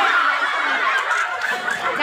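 Crowd of spectators laughing and calling out, many voices overlapping.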